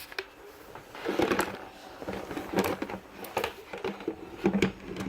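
Hard plastic leaf-blower tube sections being handled and tried together: scattered clicks and knocks with rustling in between.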